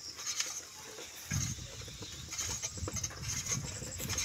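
Footsteps and handling noise from a hand-held phone carried on a walk. A low rumble with irregular knocks sets in just over a second in, and faint high chirps come and go.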